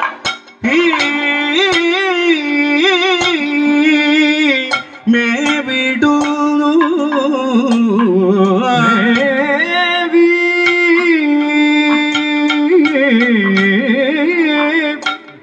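Kathakali vocal music: a male voice holding long, ornamented notes that slide and waver between pitches. Sharp percussion strokes from the chenda and maddalam drums and the singers' gong and hand cymbals accompany it. The singing breaks briefly near the start and again about five seconds in.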